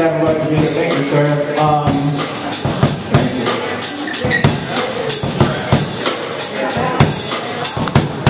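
A rock band playing live: a drum kit beating steadily under electric guitars, with pitched guitar or vocal lines strongest in the first couple of seconds.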